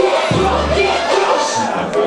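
Loud music with a deep bass line, mixed with crowd noise and voices.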